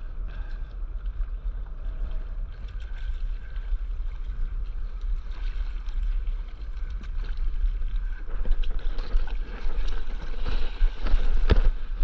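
Wind rumbling on the microphone over sea water lapping at a stand-up paddleboard. From about ten seconds in, sharp splashes of a paddle stroking the water, getting louder.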